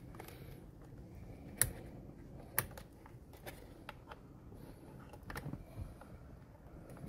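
Scattered small, sharp clicks with quiet handling noise between them, the two clearest about one and a half and two and a half seconds in: hands unplugging the steering wheel's wiring connectors and working the wheel free of the steering column.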